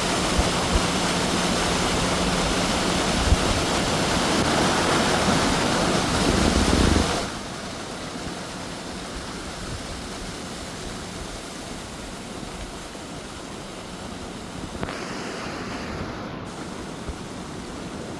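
Steady rushing noise, loud for the first seven seconds, then dropping suddenly to a quieter level.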